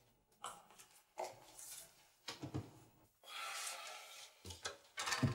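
Faint knocks and handling sounds in a small room, with a longer soft rustle about three seconds in.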